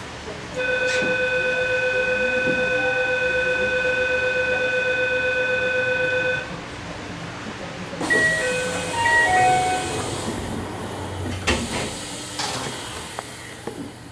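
Departure signals as a train stands at a station: a steady electronic buzzer held for about six seconds, then a quick run of chime notes, then two sharp thumps, typical of the doors closing before the train pulls out.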